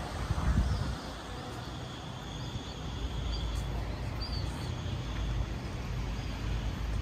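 Outdoor ambience in a town square: a steady low rumble with a few faint, high bird chirps over it.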